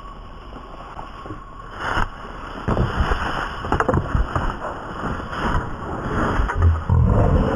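Outdoor camcorder sound of a tackle on grass: scuffling and scattered thuds, with heavy low thumps and rumble on the microphone near the end.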